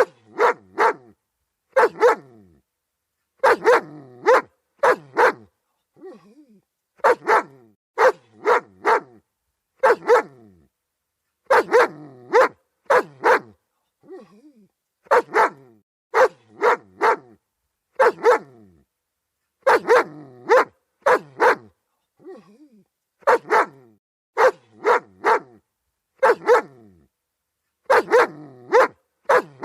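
German Shepherd dog barking repeatedly in quick runs of two or three sharp barks, with short silent gaps between the runs.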